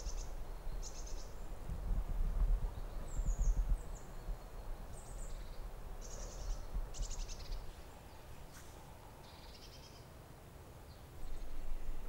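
Small songbirds calling in woodland: scattered short high chirps, quick trills and a few falling whistled notes, over a low rumble that is strongest in the first few seconds.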